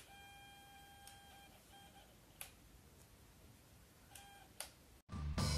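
Electronic Morse code beeper sounding a single pitched tone: one long beep of about a second and a half, two short beeps, then another short beep group a couple of seconds later, with light clicks in between. Music starts abruptly just before the end.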